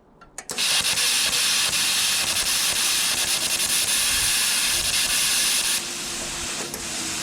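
Plasma cutter cutting thick steel at a 40 A setting: a loud, steady hiss of the arc and air jet that starts about half a second in and drops to a quieter hiss about five and a half seconds in, as the cut gives out on a power draw that blows the fuse supplying it.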